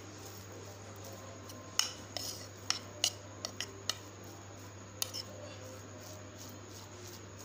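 Metal spoon clinking and scraping against a plate while mixing mashed boiled eggs with salt and black pepper: a scatter of sharp clinks in the first five seconds or so, then only a low steady hum.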